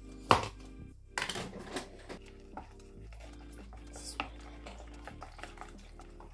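Bread dough being stirred by hand in a plastic mixing bowl: a sharp knock against the bowl about a third of a second in, then light scraping and small clicks as the flour and water are mixed.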